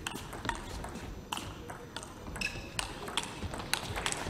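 Table tennis rally: the ball clicking off the paddles and the table about two to three times a second, with a short squeak about two and a half seconds in.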